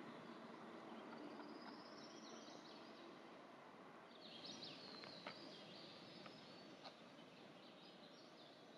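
Quiet forest ambience with faint, high songbird calls: a short trill about a second in, then a run of chirps from about halfway. Two soft ticks sound around the middle.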